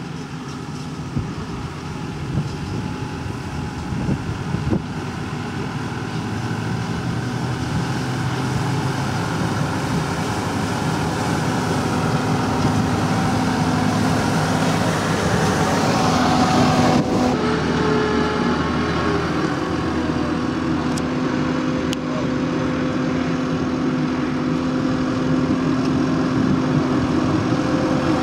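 Case CVX 130 tractor's diesel engine running steadily as it pulls a Claas Liner 2900 twin-rotor rake windrowing cut grass. The sound grows louder over the first half as the tractor draws near, then stays steady.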